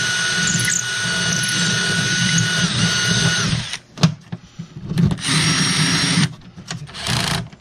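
Cordless drill boring through thin wood, its motor whining steadily and then winding down about three and a half seconds in. After a couple of clicks the drill runs twice more, briefly, as the hole is drilled from the other side so the wood won't blow out.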